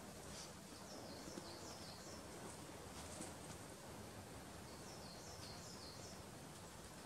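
Faint birdsong: a small songbird sings two short phrases of four or five quick falling notes, about four seconds apart, over a quiet outdoor background.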